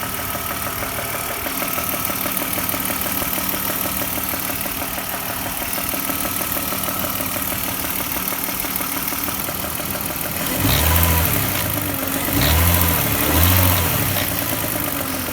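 BMW engine idling with a rapid, steady knocking, then revved briefly three times near the end. The knock comes from loose spark plugs.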